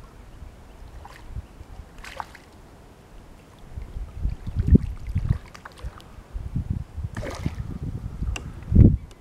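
Kayak on the water with wind on the microphone: low rumbling thumps, loudest about halfway through and again near the end, with a couple of brief swishes.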